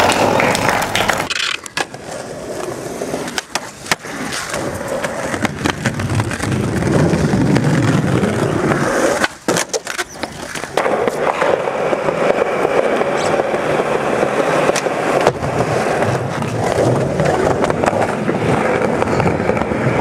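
Skateboard wheels rolling over paving stones and concrete, broken by sharp clacks of the board popping and landing tricks. The rolling dips briefly about halfway through.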